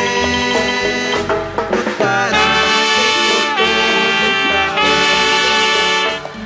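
Instrumental music from a Catholic hymn: shorter notes at first, then long held chords from about two seconds in until near the end.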